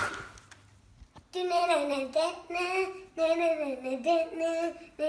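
A child singing a wordless tune in short, held phrases that glide up and down, starting about a second in. A single sharp click comes at the very start.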